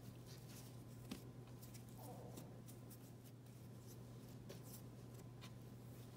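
Faint rustling and soft pats of hands kneading yeast dough on a floured wooden cutting board, with one small click about a second in, over a steady low hum.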